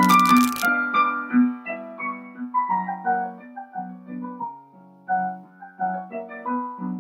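Piano music: a melody of single notes over repeated lower notes, with a short burst of noise at the very start.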